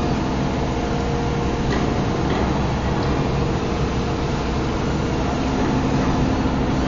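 15-ton overhead crane hoist running as it lifts a railroad traction motor: a steady electric machinery hum with several steady tones.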